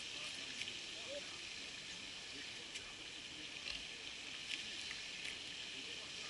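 Steady outdoor ambience: a high-pitched hiss throughout, with a few faint short chirps in the first second and a few soft clicks and a brief low knock later on.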